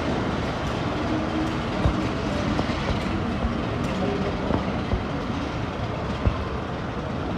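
Diesel-hauled passenger train moving slowly into a tunnel: the locomotive's engine runs with a steady hum under the rumble of the coaches. A few sharp knocks come from the wheels over the rail joints.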